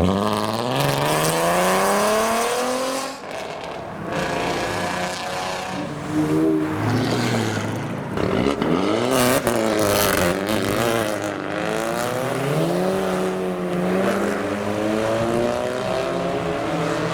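Modified cars pulling away one after another, each engine revving up with its pitch climbing as it accelerates past, then dropping away. A couple of sharp cracks about nine seconds in.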